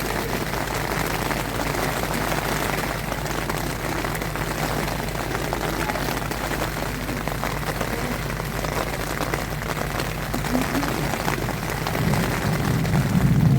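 Rain falling steadily on a small tent during a summer thunderstorm, with a low rumble of thunder swelling near the end.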